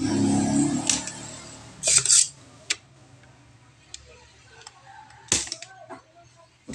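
Spring-loaded desoldering pump and soldering iron at work on a circuit board's switch pins: a short hiss of air about two seconds in, then a few sharp clicks and snaps, the loudest a little past five seconds, as solder is sucked from the joints.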